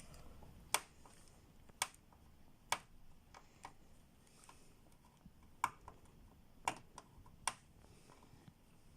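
Irregular sharp clicks and taps of fingernails and hands on hard plastic, about six distinct ones with fainter ticks between, while packing tape is picked off the sewing machine.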